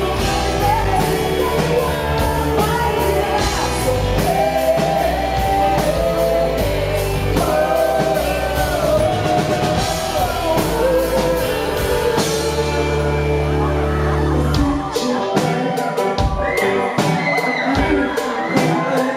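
Live pop-rock band performing with sung vocals, electric guitars, bass and drums, heard in a large room. About 15 seconds in the bass drops out, leaving drums and a higher vocal line.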